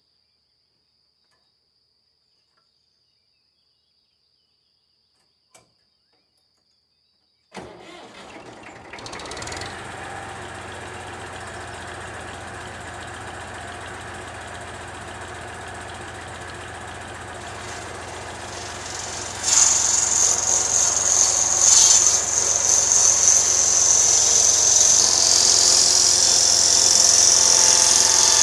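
Near silence, then about a third of the way in a tractor's diesel engine starts and runs steadily. About two-thirds in the sound grows louder as the tractor's PTO shaft spins up a circular saw blade, adding a high whine.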